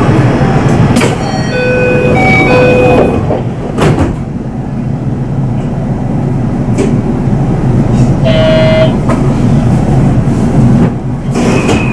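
Marine Liner electric train running, with a steady rumble and occasional clicks of wheels over rail joints. A few short electronic tones sound between about one and three seconds in, and a brief buzzer-like tone about eight seconds in.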